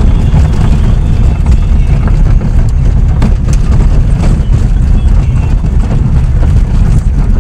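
Car driving on a gravel road, heard from inside the cabin: a loud, steady low rumble of tyres and engine, with a few scattered sharp clicks partway through.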